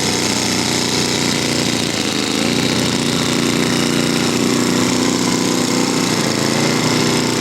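Radio-controlled model airplane piston engine running steadily with a rattly buzz, its pitch shifting a little about two and a half seconds in.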